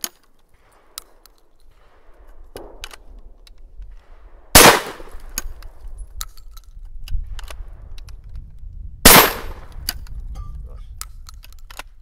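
Two shotgun shots from a single-shot shotgun, about four and a half seconds apart, each a sharp blast with a short echoing tail. Between them come small metallic clicks of the action being opened and reloaded by hand.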